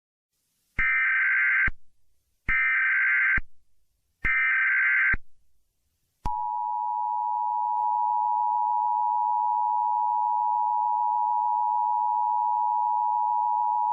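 US Emergency Alert System signal: three short bursts of SAME digital header data, each about a second long, then about six seconds in the steady two-tone EAS attention signal sounds and holds. It marks the start of an emergency alert broadcast.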